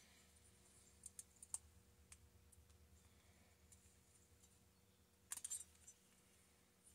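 Faint, scattered light clicks of small chainsaw engine parts and hand tools being handled during a top-end teardown, with a short flurry of clicks a little after five seconds in.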